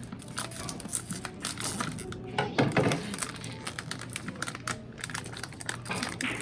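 Many small, irregular clicks and taps of hard objects, with a louder clatter about two and a half seconds in, over faint background music.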